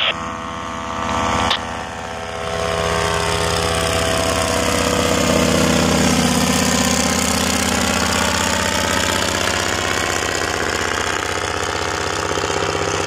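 Paramotor engine and propeller droning steadily as the powered paraglider flies overhead, the pitch sagging and rising again midway.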